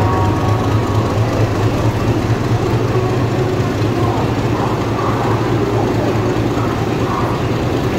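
Steady low drone of the diesel generator in an Indian Railways LHB power car at the end of a Shatabdi Express, idling beside the platform, with general station noise above it.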